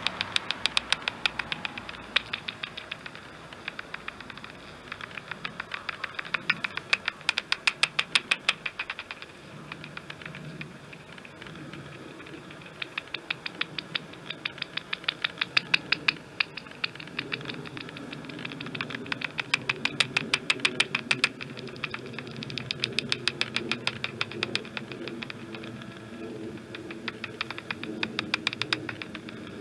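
Heterodyne bat detector tuned to 28 kHz turning serotine bats' echolocation calls into runs of sharp clicks, about ten a second, coming in bursts of a few seconds as the bats pass. A low hum runs underneath in the second half.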